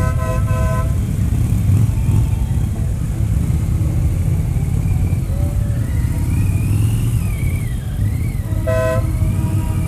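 Harley-Davidson touring motorcycle's V-twin engine running with a steady low rumble at parade pace. A vehicle horn toots briefly at the start and again near the end.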